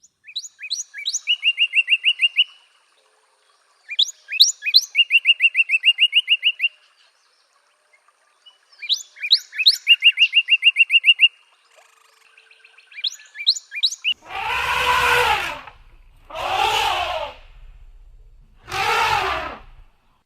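A songbird sings three phrases a few seconds apart, each a few quick down-slurred notes ending in a fast trill. After the third phrase come three long, harsh calls from a larger animal, about two seconds apart.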